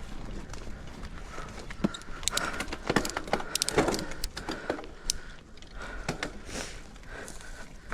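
Mountain bike rattling over a rough dirt trail: tyre noise with many sharp clicks and clatters from the chain and bike parts, busiest a couple of seconds in, and a high buzzing that comes and goes.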